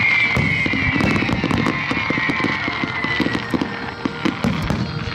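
Fireworks going off: dense, irregular crackling pops and bangs, with a long falling whistle over the first few seconds.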